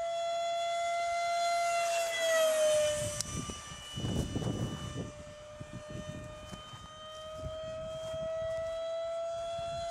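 Radio-controlled model F-4 Phantom jet whining as it flies past, its pitch dropping as it goes by about two and a half seconds in. After a few seconds of low rumbling, the whine comes back and rises slowly as the jet returns.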